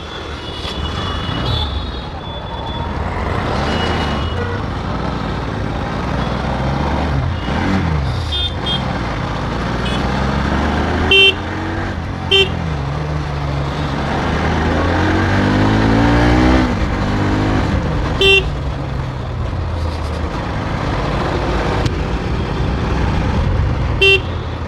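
Bajaj Pulsar NS200's single-cylinder engine running as the motorcycle rides through traffic, its pitch rising and falling with the throttle and rising steadily about two-thirds of the way in. Four short horn toots sound over it.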